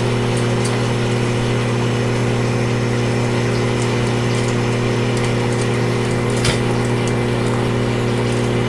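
Microwave oven running: a steady, loud hum over fan noise, with one brief click about six and a half seconds in.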